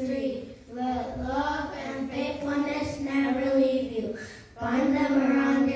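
Young children's voices singing together in unison, in long held notes broken into phrases by two short pauses.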